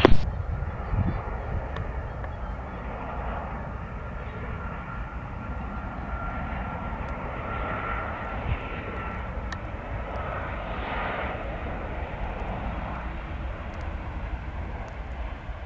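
Jet airliner engines running, a steady rumble and hiss with a faint whine that swells and fades midway.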